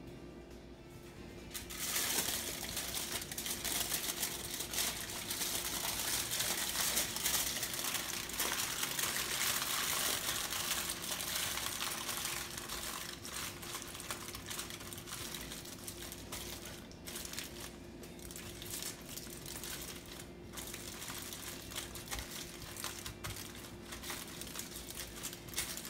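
Aluminium foil crinkling and crackling as hands fold it over and press it shut into a packet. The crackling starts about two seconds in, is densest for the next several seconds, then goes on more quietly in shorter bursts.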